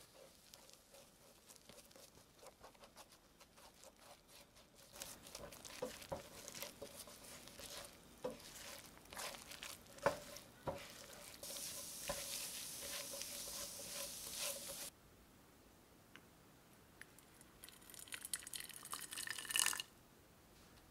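Spatula stirring and scraping egg and shredded cabbage around a nonstick frying pan, with tapping strokes and light sizzling as the egg scrambles. After a drop about three quarters of the way in, hot water is poured into a ceramic plate, stopping suddenly near the end.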